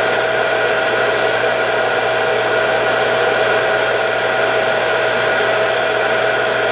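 Water pump motor running steadily, a continuous whir with a steady whine. It doesn't sound like it's got a load on it, as when the pump is drawing air while the lines refill after being shut off for the winter.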